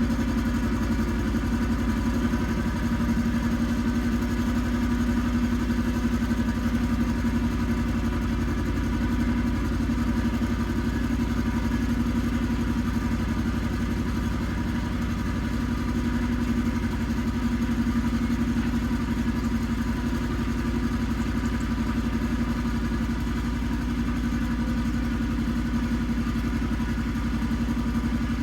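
Iseki TX1300 compact tractor's diesel engine running steadily at a constant speed.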